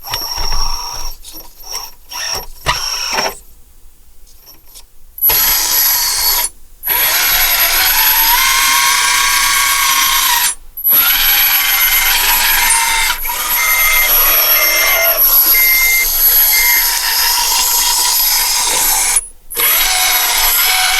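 Kabolite K963 1/16 hydraulic RC track loader running: a few short stop-start bursts of its drive motors, then from about five seconds a loud steady whirring of its hydraulic pump, cutting out briefly three times, its pitch rising and dipping under load. A string of short beeps sounds about midway.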